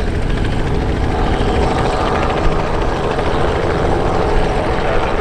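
Robinson R44 helicopter hovering low, its piston engine and two-blade main rotor running steadily with a fast, even rotor beat.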